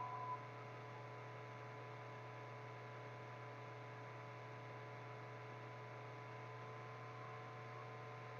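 Steady low electrical hum with faint hiss and a thin, unchanging tone above it: background noise of the recording chain, with no other sound.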